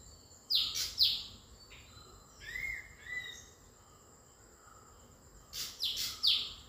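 A bird calling: two quick, sharp falling calls about half a second apart, softer short calls in the middle, and another pair of sharp falling calls near the end.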